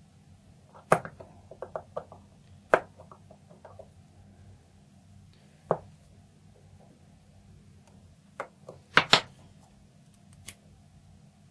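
Sharp metallic clicks and taps from an Ikon lock cylinder being handled as its retaining rings are worked at by hand; the rings are not coming loose. The clicks come scattered in small clusters, the loudest a quick pair about nine seconds in.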